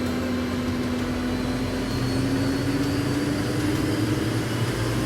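Heavy vehicle engine running under load, its pitch climbing slowly and steadily.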